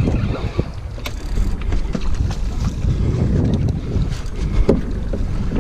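Wind rumbling and buffeting on the microphone, with a few sharp clicks and knocks as a spinning rod and reel are cranked against a hooked tripletail.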